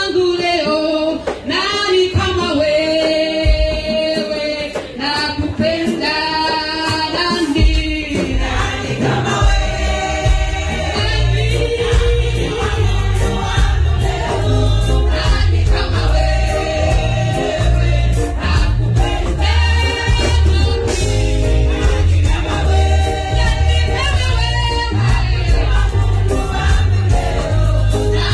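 Women's choir singing a gospel song over an amplified band. A steady bass beat comes in about eight seconds in.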